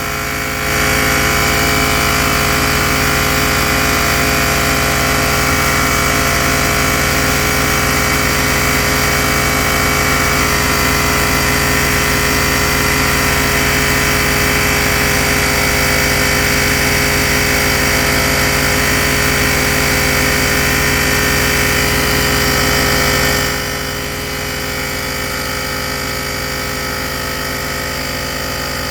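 Battery-powered tyre inflator's small compressor running steadily as it pumps up a bicycle tyre. It cuts out about 23 seconds in, shutting off at the set pressure. A quieter steady machine hum continues underneath.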